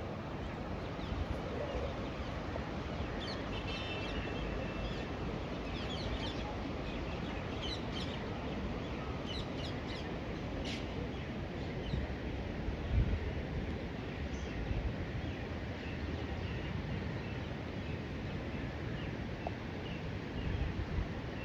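Small birds chirping in short high calls, many times from about three to eleven seconds in, over a steady outdoor rushing noise of river water and open air. A few low thumps come later, the loudest about halfway through.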